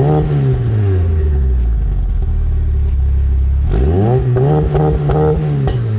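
Mitsubishi Lancer Evolution VII's turbocharged 4G63T four-cylinder free-revving through a large single exhaust tip. One blip peaks right at the start and drops back to idle within about a second and a half. A second, longer rev climbs about four seconds in, holds for over a second, then falls back to idle near the end, with a few sharp clicks along the way.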